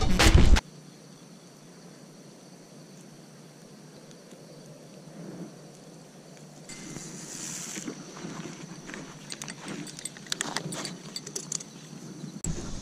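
Music cuts off about half a second in. Faint outdoor hiss follows, with scattered rustles and clicks of a camera or gear being handled, growing busier in the last few seconds.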